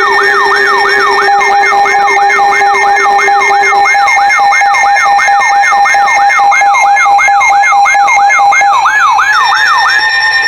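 Electronic emergency alert tone: a loud siren-like yelp sweeping up and down in pitch about three times a second over steady held tones. The sweep stops abruptly near the end.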